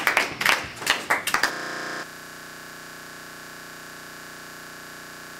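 A burst of clapping for about the first second and a half. It gives way abruptly to a steady electronic hum of several held tones that drops a step in level about two seconds in and then holds unchanged.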